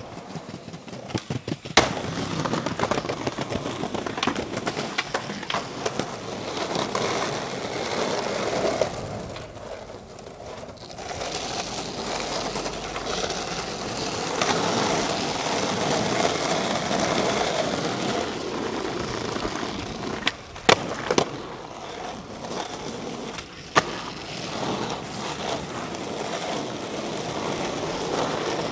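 Skateboard wheels rolling over street asphalt in a steady grinding hiss, broken by a few sharp clacks of the board: one near the start, two close together about two-thirds of the way in, and one a few seconds later.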